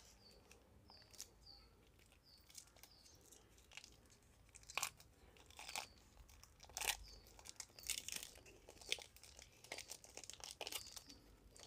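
Plastic granola-bar wrapper crinkling and tearing as it is opened and handled, in faint, irregular crackles that come thicker and louder from about halfway on.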